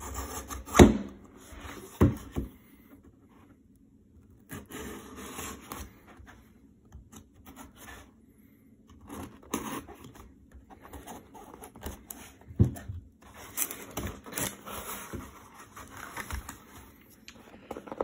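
Red utility knife slitting packing tape on a cardboard shipping box, with scraping and tearing of tape and cardboard as the box is handled and its flaps pulled open. Two sharp knocks come about one and two seconds in.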